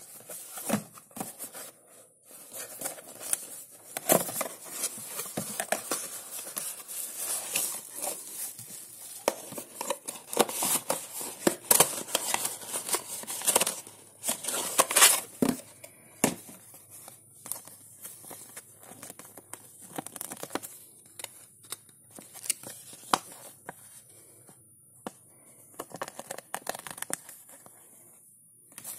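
Unboxing handling noise: a small cardboard box being opened and rummaged through, with crinkling of bubble-wrap packaging. Irregular rustles, scrapes and knocks, busiest in the first half and sparser and quieter later on.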